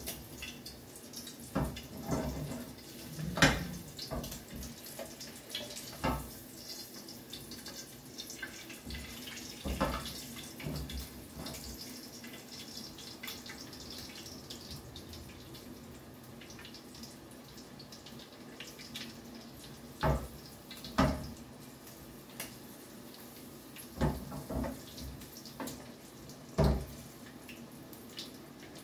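Hot oil sizzling steadily in a frying pan, with sharp clacks of metal tongs every few seconds, several close together in the second half.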